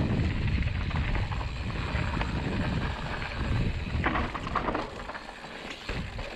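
Mountain bike riding down a dirt forest trail: wind buffeting the microphone as a low rumble, with tyres rolling over the dirt and the bike rattling over bumps. The rumble eases about five seconds in, leaving lighter clicking and rattling.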